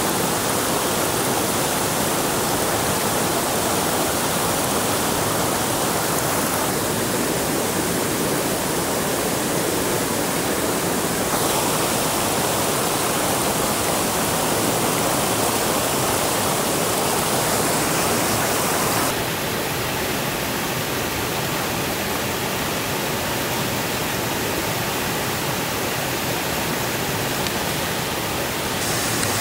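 Steady rushing noise with no distinct events, its character changing abruptly three times.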